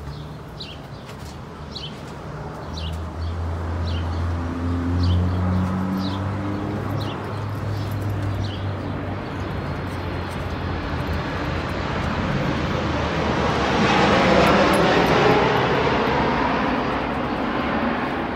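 A passing engine: a low hum that swells over about ten seconds into a broad rushing sound, loudest about three quarters of the way through, then fading. A bird chirps about once a second through the first half.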